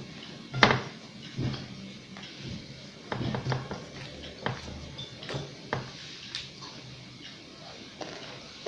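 Scattered light clicks and taps on a glass plate as a child eats rice and a fried vegetable fritter with her fingers.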